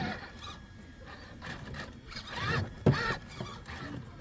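Axial SCX6 Honcho 1/6-scale RC crawler's electric drive motor and gearbox whining in short bursts as it crawls over rock, the pitch rising and falling with the throttle. A single sharp knock comes about three seconds in.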